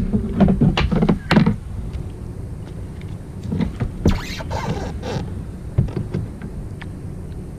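Irregular clicks and dull thunks of fishing gear being handled against a plastic kayak hull, loudest in the first second and a half.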